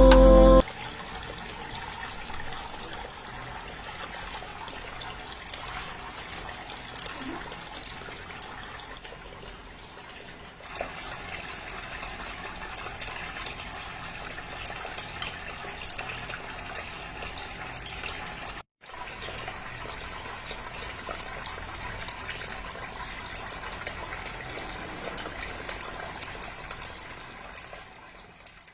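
Water from a homemade waterfall fountain falling steadily, cutting out for a moment about two-thirds of the way through.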